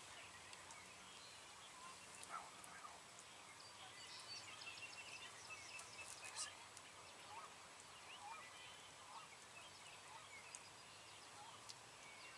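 Faint wild turkey calls from young gobblers (jakes): scattered short clucks and soft calls.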